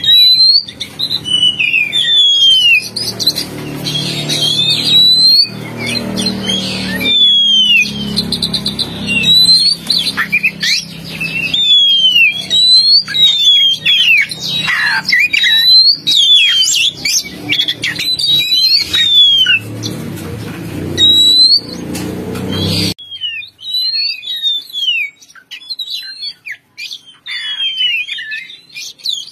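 Lure recording of Oriental magpie-robin (kacer) calls: many short, clear whistled notes, most sliding downward, repeated in quick succession. A low background rumble under the calls cuts off suddenly about 23 seconds in, leaving the whistles alone.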